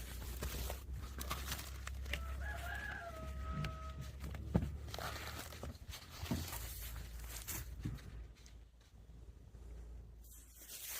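A rooster crows once, about two seconds in: a wavering start, then a long held note, over a low steady rumble and a few faint knocks.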